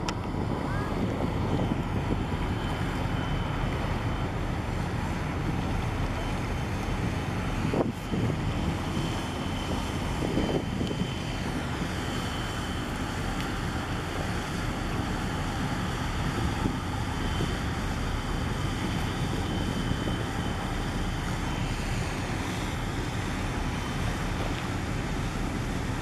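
Wind buffeting the microphone over choppy harbour water, with a steady low rumble of a boat on the move and a faint steady high whine.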